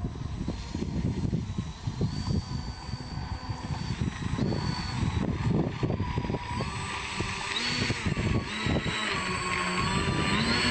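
Electric motors and propellers of a four-engine RC model B-29 whining, the pitch stepping up and down several times as the throttle changes. Gusty wind rumbles on the microphone underneath.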